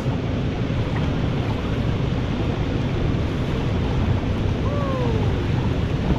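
Steady rushing of a Colorado River rapid ahead mixed with wind buffeting the microphone, heavy in the low end. One short call falling in pitch about five seconds in.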